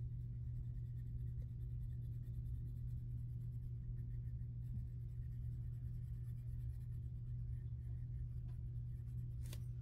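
Colored pencil scratching on paper in quick small strokes, shading in a box on a paper savings tracker, over a steady low electrical hum.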